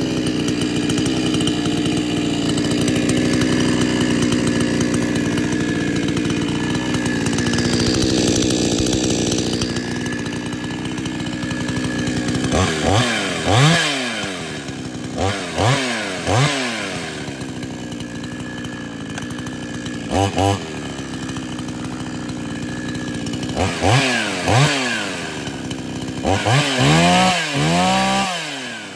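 XtremepowerUS two-stroke gas chainsaw running with an aftermarket black muffler fitted: it runs steadily at first, then from about halfway is revved up and down over and over in quick throttle blips.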